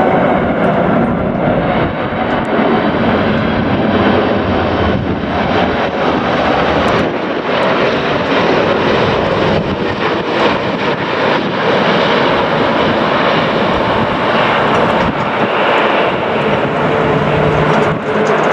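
Jet airliner's engines running loud and steady as it arrives to land, a dense rushing jet noise with faint whining tones in it.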